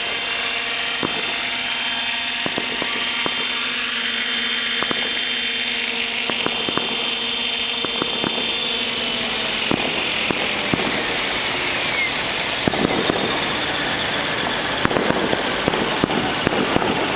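Thunder Tiger Raptor E720 electric RC helicopter hovering low and setting down, its motor and rotor giving a steady whine. After about nine seconds the whine fades and falls in pitch as the rotor spools down, with irregular clicks and rattles.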